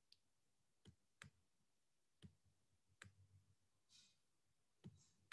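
Near silence broken by about six faint, scattered clicks of a stylus tip tapping a tablet screen as words are handwritten. A soft hiss comes about four seconds in.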